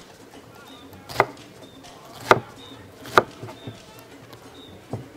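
Large kitchen knife chopping through a rolled bundle of kontomire (cocoyam leaves) onto a wet round wooden chopping board: four sharp chops, roughly a second apart.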